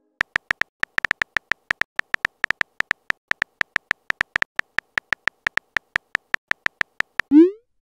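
Texting-app keyboard sound effect: a short, high-pitched blip for each typed character, about five a second. Near the end, a quick rising swoosh as the message is sent.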